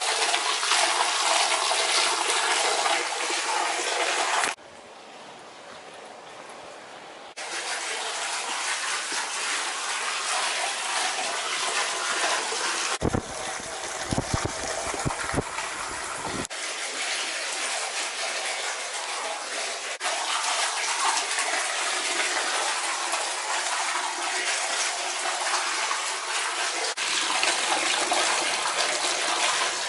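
Spring water gushing and splashing steadily, heard across several abrupt cuts, with a quieter stretch about five seconds in. Near the middle, a few seconds of low knocks and rumbles sound over the water.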